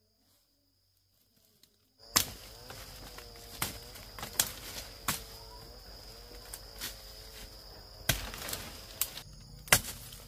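Near silence for about two seconds, then outdoor woodland sound: a steady high-pitched insect drone with irregular sharp snaps and knocks, the loudest near the end.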